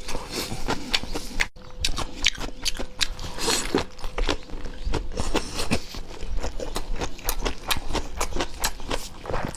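Close-miked eating sounds: irregular wet smacks, clicks and chewing, with a brief break about a second and a half in.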